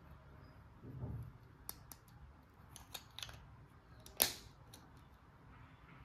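Clicks and taps from a small plastic toy washing machine being handled. A soft low thump comes about a second in, a few light clicks follow, and the sharpest, loudest snap comes a little after four seconds.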